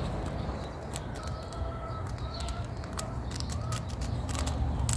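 Light clicks and rustles of a paper seed packet and fingers working seeds into potting soil, with a bird giving several short calls in the background about one and a half to three seconds in.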